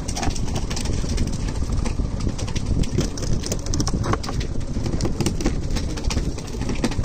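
Steady low rumbling noise of a small fishing boat at sea, with many scattered short clicks and knocks.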